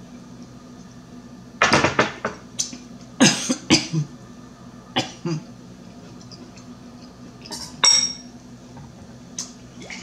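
Dishes and cutlery handled at a meal: a few short knocks and clinks of a fork and a glass bowl against the plate and table, the loudest around a couple of seconds in, and one clink near the end that rings briefly. Mouth sounds of eating come between them.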